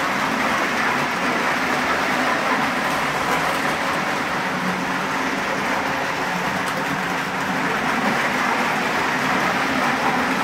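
Electric O-gauge model trains running laps on tubular three-rail O-27 track: a steady running noise of motors and wheels that holds without a break.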